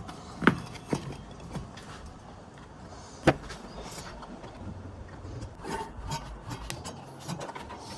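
Hand-tool work on a miter saw's plastic dust chute as its screws are driven tight: scattered knocks and scraping, with two sharp clicks, one about half a second in and one about three seconds in.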